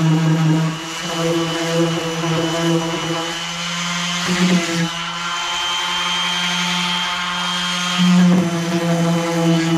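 Small electric power-tool motor running steadily with a droning hum. Its tone shifts about four seconds in and again near eight seconds, as if under changing load.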